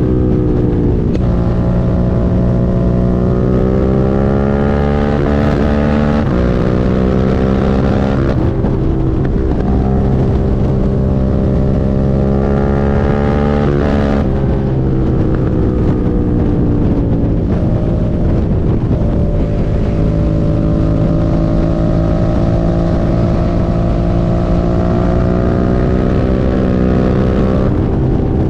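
Suzuki SV650's V-twin engine pulling under load while riding. The revs climb and then drop sharply at gear changes, a few times through, with some wind noise on the microphone.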